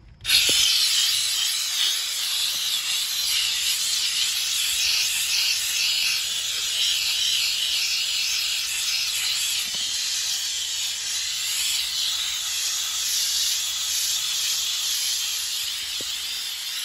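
Grant's handheld steam cleaner blasting steam through its flexible hose and brush nozzle against a wheel rim: a loud, steady hiss that starts suddenly just after the beginning.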